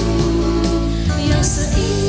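Music: a sung Christian song over instrumental backing, the voice holding long wavering notes.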